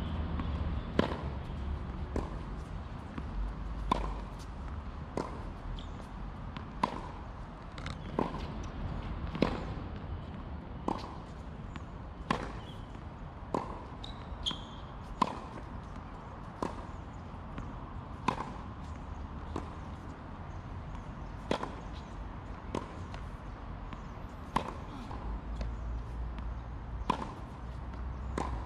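Tennis ball being hit back and forth in a baseline rally: sharp racket strikes and ball bounces on a hard court, one every second or so, over a low steady rumble.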